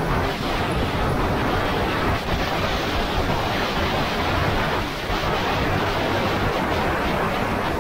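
Go-kart driving at speed, heard mostly as a steady rush of wind buffeting the microphone, with a heavy low rumble.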